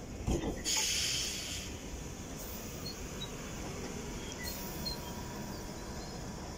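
London Underground 1973 Stock Piccadilly line train standing at the platform: a short burst of compressed-air hiss about a second in, after a couple of light knocks, then a steady low hum from the train.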